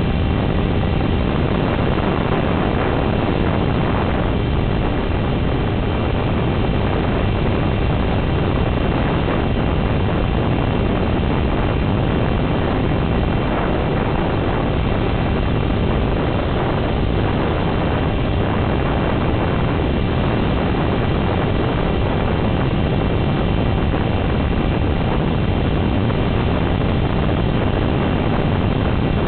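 Dynam HawkSky electric RC plane in flight: a steady rush of air and motor noise that holds even throughout.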